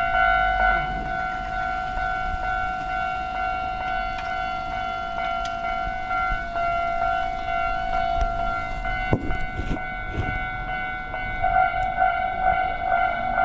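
Japanese railway level-crossing warning bell ringing steadily, over the low rumble of a train on the line. A few knocks come about nine to ten seconds in, and the bell grows louder near the end.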